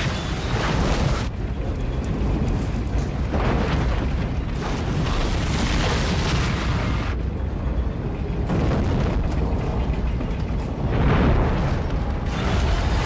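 Film sound effects of the starship Enterprise-D crash-landing: a continuous deep rumble with repeated swells of booming, crashing noise every few seconds.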